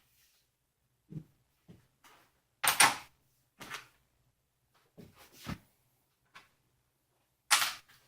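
Irregular knocks, clicks and scrapes of hand work while screws are tightened on a 3D printer's inside panel. The two loudest are longer scraping clatters, about three seconds in and again near the end.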